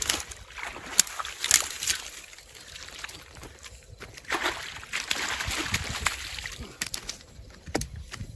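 Water sloshing and splashing around a small boat. There are several sharp knocks in the first two seconds, and a longer rush of splashing from about four seconds in.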